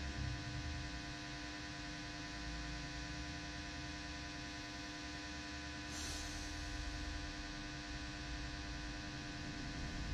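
Steady electrical hum and buzz with several fixed tones, over a low rumble, and a brief rustle about six seconds in.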